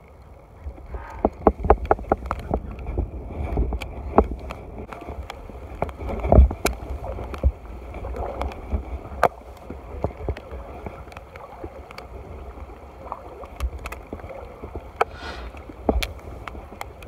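Handling noise from a handheld camera being carried in the rain: irregular sharp knocks and rubbing over a steady low rumble, ending as a hand covers the camera.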